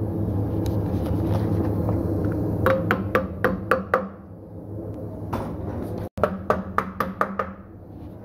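Two quick runs of hammer strikes, about four a second and six strikes in each run, over a steady machine hum. There is a short break in the sound between the two runs.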